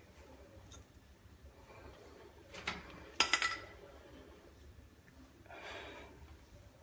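Pieces of a cut-open UF water-filter cartridge being handled: a few light knocks and clicks, the sharpest about halfway with a brief ring, then a short rustling scrape near the end.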